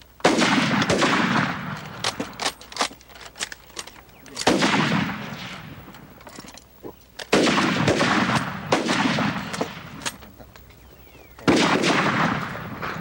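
Bolt-action rifles firing on a shooting range. Four loud volleys come about three to four seconds apart, each dying away over a second or two, with scattered single shots cracking between them.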